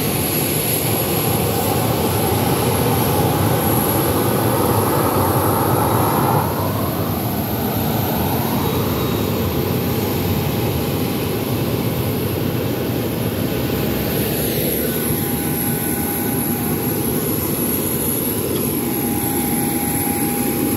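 Jet engines of a taxiing Boeing 737 airliner running steadily, a loud rushing sound with a high whine. The whine's pitch falls about six seconds in.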